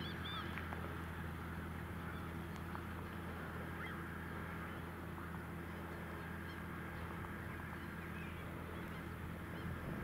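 John Deere 6150R tractor's six-cylinder diesel engine running steadily under load, pulling a five-furrow reversible plough. A flock of gulls calls over it, with a cluster of high calls right at the start and scattered calls after.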